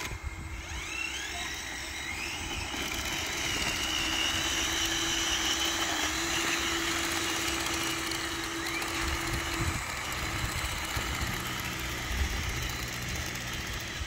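Small electric motors of a radio-controlled toy bulldozer whining steadily as it drives on its tracks, the whine cutting off about ten seconds in.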